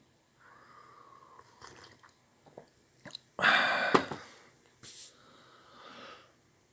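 Non-speech breath and mouth sounds from a man with a cold. Faint breathing and small mouth clicks come first, then a loud, abrupt burst of breath a little over three seconds in, with fainter breathing after it.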